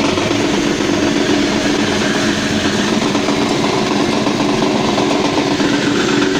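Dry-soybean dehulling machine running steadily under power: a continuous mechanical drone with a dense rushing noise over it as the beans are hulled.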